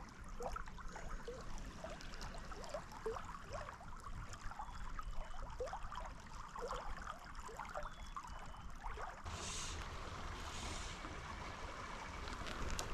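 Small stream trickling and gurgling close by, with many short plops and drips of water. A steadier rush of water grows louder about nine seconds in.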